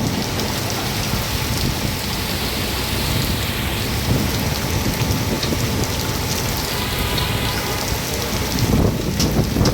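Heavy rain pouring down, a dense steady wash of sound made up of countless small drop impacts.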